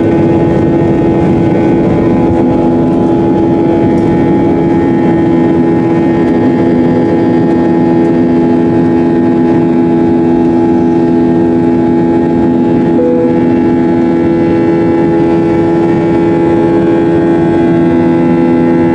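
Steady drone of an airliner in flight heard from inside the cabin: a constant low hum with several fixed tones over a rush of noise.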